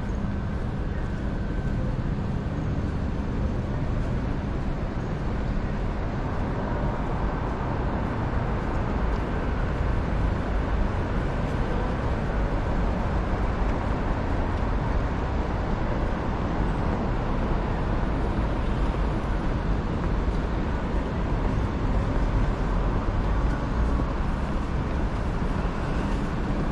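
Steady low rumble of city traffic, with no sudden sounds standing out.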